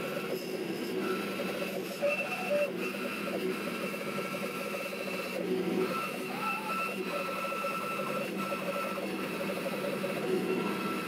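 Bandsaw running and cutting lengthwise through a block of micarta, a steady machine sound with a high tone from the cut that comes and goes.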